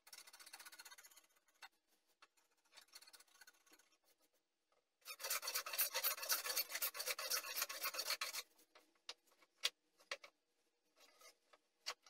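Wood being shaved by hand with a blade tool: a short faint scrape at the start, then about three seconds of quick rasping strokes from about five seconds in, as shavings come off the board. A few light knocks follow.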